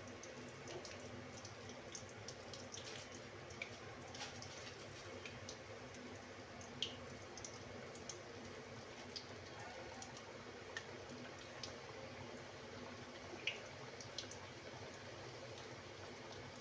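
Somas, a stuffed maida-dough pastry, deep-frying in hot oil in a small deep kadai: a faint steady sizzle with scattered pops and crackles.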